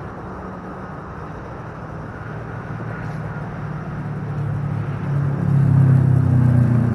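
Traffic on a nearby freeway, a steady low rumble, with one heavy vehicle's engine swelling louder from about halfway through and easing off near the end.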